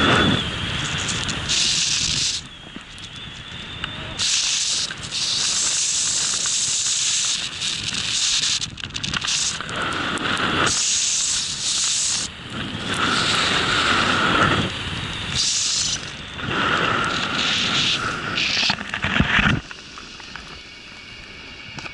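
Snowboard sliding and turning through deep powder: repeated surges of hissing snow spray and rushing from the board, easing off near the end as the board slows.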